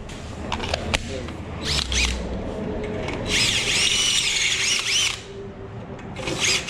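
Cordless drill running in bursts, drilling holes for an ATV battery box. It gives a high whine that rises and falls in pitch, the longest burst lasting about two seconds near the middle. A few clicks come before it.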